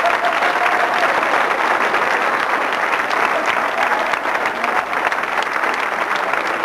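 Studio audience applauding, a steady dense clapping that keeps up without a break.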